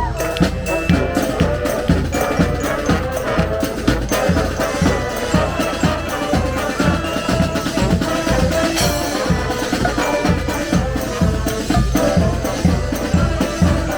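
A street band playing: drums keep a steady beat under held melody notes.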